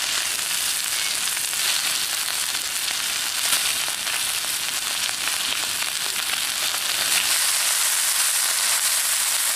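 Pieces of beef sizzling steadily on a hot round griddle pan over a portable gas stove, with a few faint clicks of the metal tongs and scissors handling the meat.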